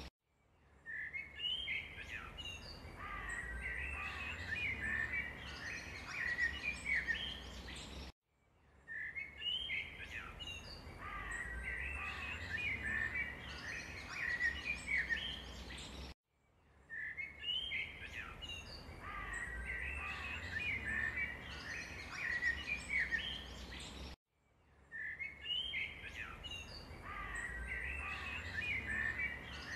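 Birds chirping over a low rumble: the same eight-second stretch of birdsong plays as a loop, cutting to silence for a moment and starting over about every eight seconds.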